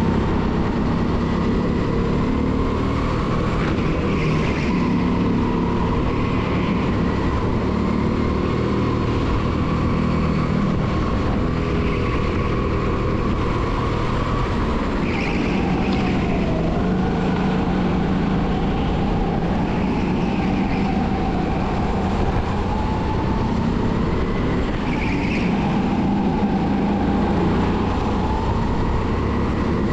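270cc kart engine running hard at speed, its pitch rising and falling as the kart brakes and accelerates through the corners, with short high squeals, likely from the tyres, several times.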